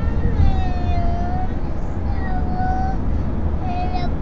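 Steady low road rumble inside a moving car, over which a small child sings about three long, drawn-out wordless notes.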